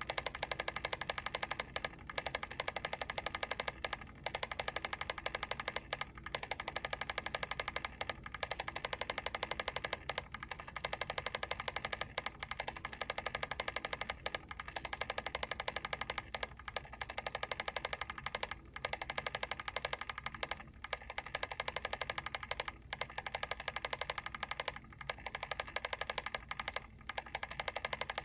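Mechanical timer's clockwork ticking in a fast, steady run of small clicks, with a brief lull about every two seconds.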